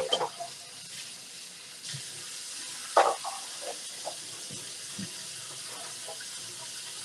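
Kitchen sink tap running steadily as the sink is washed, with a knock about three seconds in.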